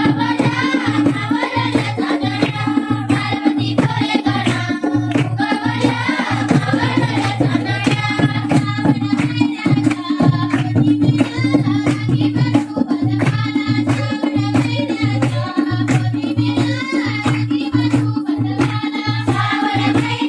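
Folk song: a voice singing a melodic line over hand-drum accompaniment playing a steady, even rhythm.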